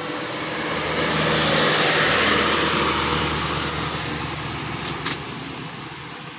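A motor vehicle driving past: engine hum and road noise swell to a peak about two seconds in and then fade away. Two short sharp clicks sound about five seconds in.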